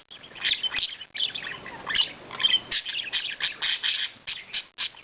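Pet budgies chirping and chattering in quick, short high-pitched calls, busiest in the second half.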